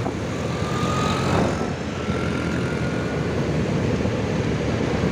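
Steady motorcycle engine and road noise while riding in heavy traffic of cars and scooters, a low rumble throughout. A faint thin whine rises slightly in pitch over the first few seconds.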